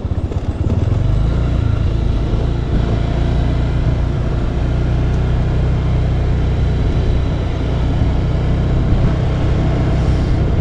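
Motorcycle running as it is ridden along, a steady low engine rumble that grows louder about a second in and then holds.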